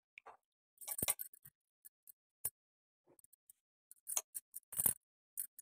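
Scattered sharp clicks and clinks as a hand works through washed, drained barnyard millet and toor dal in a pot, with the bangles on the wrist knocking together. The clicks come in small clusters, about a second in and again a little after four seconds.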